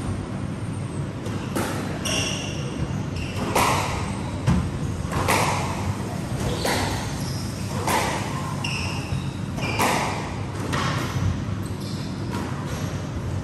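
Squash rally: the ball smacked by rackets and hitting the court walls, hard knocks at irregular intervals about a second apart, with short squeaks of shoes on the wooden floor, over a steady low hum.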